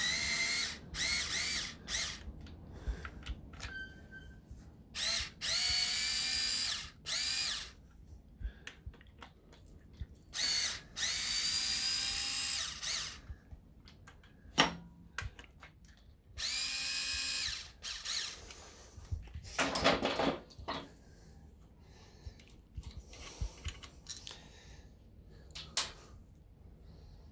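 Cordless electric screwdriver with a socket adapter running in about eight short bursts, its motor whining, as it backs out the clutch spring bolts a little at a time. Clicks and knocks of the tool on the bolts fall between the bursts.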